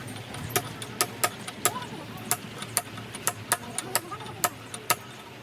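A run of short, sharp taps and clicks at irregular spacing, about two or three a second, from hand work on a truck gearbox during its rebuild. A low steady hum runs underneath.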